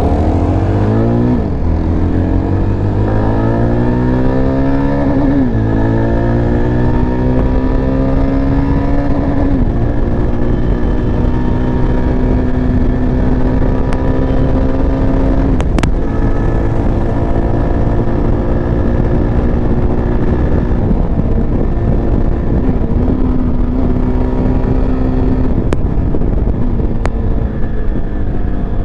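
Yezdi Adventure's 334 cc single-cylinder engine accelerating hard from a roll. It rises in pitch through three upshifts over the first ten seconds, then holds a steady cruise with the throttle eased briefly twice near the end.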